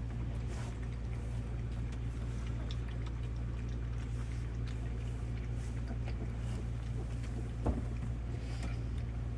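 Faint wet clicks of puppies lapping milk from a bowl over a steady low hum, with one thump about three quarters of the way through.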